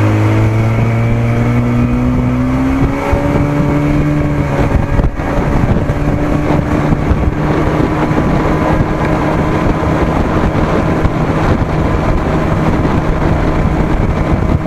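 1987 Johnson 40 hp two-stroke outboard motor throttling up, its pitch rising over the first three to four seconds, then running steadily at speed.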